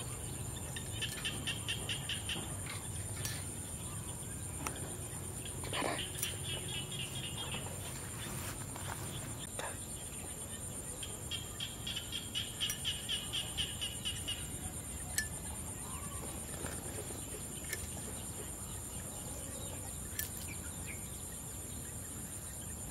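Outdoor rural ambience: insects droning steadily and high-pitched, with three runs of rapid trilling calls lasting one to three seconds each, and a few sharp clicks.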